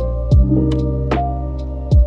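Background music: sustained synth chords over a steady kick-drum beat of about one thud a second, with light high ticks.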